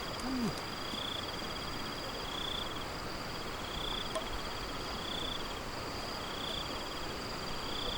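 Insects calling: a steady high trill, with a pulsed chirp that repeats about every second and a half. Just after the start there is one short, low, falling call.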